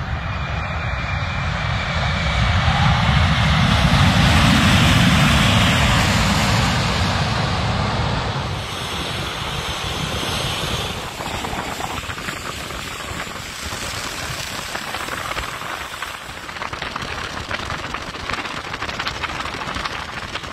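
Jet engines of a Qantas Airbus A380, its four Rolls-Royce Trent 900 turbofans: a deep rumble swells to a peak about four to five seconds in as the airliner rolls along the runway, then fades. Later comes the lower, steadier engine noise of the A380 taxiing.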